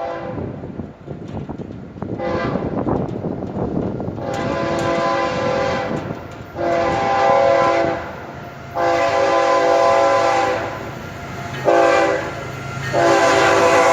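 Multi-chime locomotive air horn, a Nathan K5HL on GE ES44C4 diesels, sounding a string of long blasts, then a short one and another long one near the end, over the low rumble of a freight train approaching at track speed.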